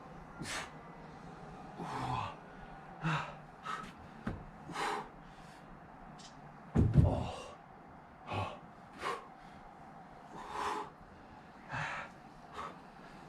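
A man's heavy, sharp breaths and gasps under hard exertion, roughly one every second, with one louder, deeper burst about seven seconds in.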